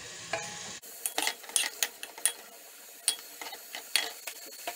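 A spatula stirring onion rings frying in oil in a metal pressure-cooker pot: irregular scrapes and taps of the spatula against the pot over a faint sizzle.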